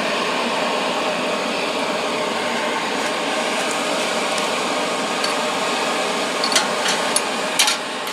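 Blow dryer forcing air into a charcoal-grill forge: a steady whooshing hum of the blower and air through the coals. Near the end come a few sharp clicks, most likely the metal spoon in the pan of melting aluminum.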